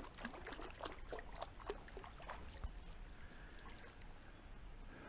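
Faint small splashes, drips and ticks of water lapping around a float tube, thinning out after about three seconds.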